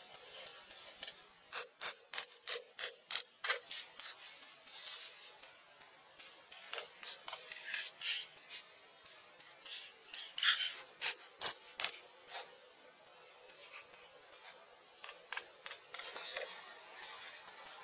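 Felt-tip marker scratching across sketchbook paper in short strokes: a quick run of about five strokes a second for a couple of seconds, then scattered strokes with pauses.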